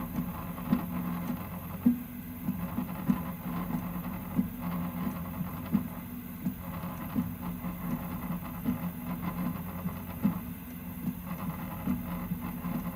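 Prusa MK3S+ 3D printer running, its motors giving steady low tones, with a rattle of sharp irregular clicks, about one to two a second, coming from the Y-axis and bed as it moves.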